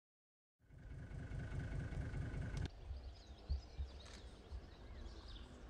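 A low rumble with a steady high hum that cuts off suddenly about two and a half seconds in, then an uneven low rumble outdoors with birds chirping faintly.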